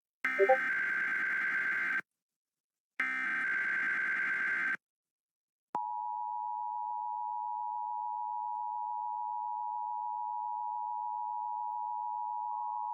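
Emergency Alert System test tones. First come the last two of three SAME digital header bursts, each a buzzy data screech lasting nearly two seconds, about a second apart. Then, just under six seconds in, the EAS two-tone attention signal (853 and 960 Hz sounded together) starts and holds steady.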